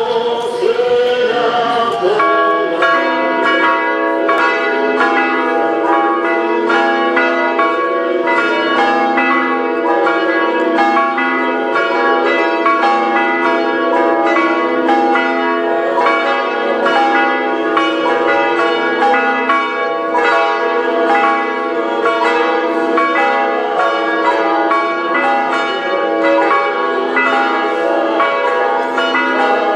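Church bells ringing, many pitches struck in a quick, steady succession with their tones overlapping and hanging on. In the first two seconds a wavering pitched sound comes before the bells settle in.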